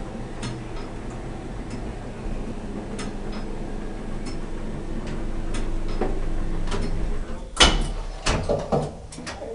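Wheelchair platform lift humming steadily, then a loud clunk and a few knocks and clicks near the end as the lift door is opened at the top floor.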